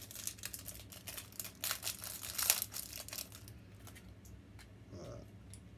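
Packaging of a small two-piece magnet pin crinkling and tearing as it is opened by hand: a dense run of crackles and rips for about three and a half seconds, loudest near the middle, then only faint handling.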